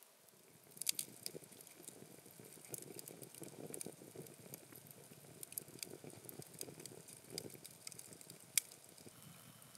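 Wood campfire crackling with scattered sharp pops, the loudest near the end, over a low sizzle from perch roasting on sticks above the flames.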